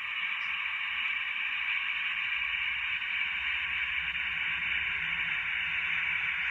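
Steady hiss of radio static from an Apollo 11 air-to-ground mission audio clip, played through the diorama's small speaker, with no voice on the channel.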